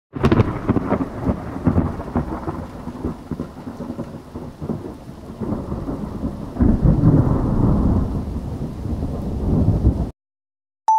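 Thunderstorm noise: a deep rumble of thunder over rain, swelling loudest about two-thirds of the way through and cutting off abruptly just before the end.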